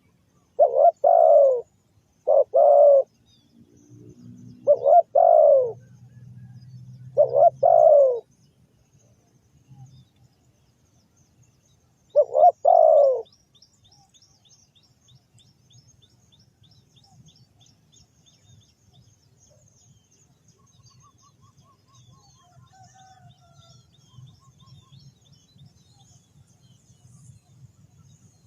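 Spotted dove cooing: five loud, low coo notes at uneven intervals, the last about twelve seconds in. Faint high chirping of small birds follows through the rest.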